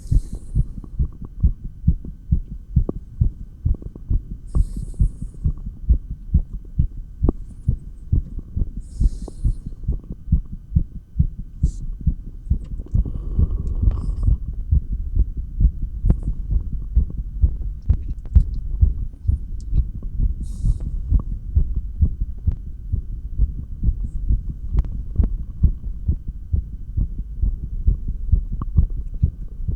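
Human heartbeat heard through an electronic stethoscope's chestpiece: a regular, low beat of about two strong strokes a second, quickened by dumbbell exercise, over a low hum. A few brief high rustles come from the chestpiece shifting, the longest about halfway through.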